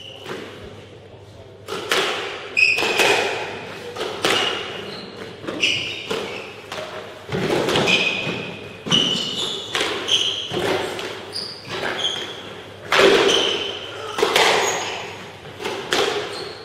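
A squash rally: the ball smacks off rackets and thuds against the court walls about once a second, ringing in a reverberant court. Shoes squeak on the wooden floor between hits. The rally starts with the serve nearly two seconds in.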